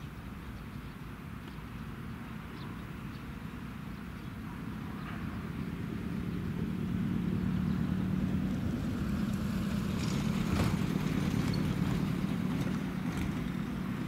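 An unseen motor engine drones steadily, growing louder over a few seconds and holding near its loudest for several seconds before easing slightly near the end, with a sharp click about ten seconds in.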